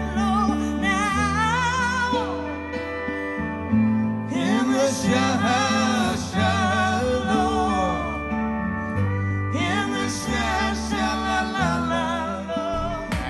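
Music played back through a pair of ProTone Zero 4-inch speakers driven by an SL-AA15S amplifier module: a wordless sung passage with long, wavering held notes over steady bass chords, in two phrases.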